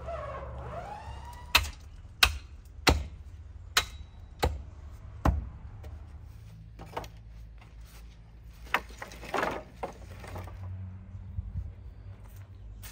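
Long wooden poles knocking against each other as they are pulled and dropped: six sharp wooden knocks over about four seconds, then a rustling scrape near the middle.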